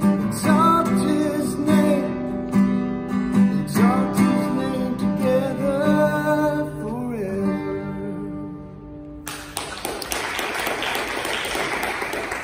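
Acoustic guitar strumming with a singing voice, the song ending on a held, fading chord, then applause starting suddenly near the end.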